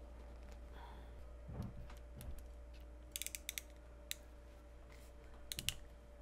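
Canare TC-1 ratchet crimp tool clicking as it closes on a BNC connector: a quick run of light clicks about three seconds in, a single click a moment later, and three more near the end. Soft handling thumps come before them.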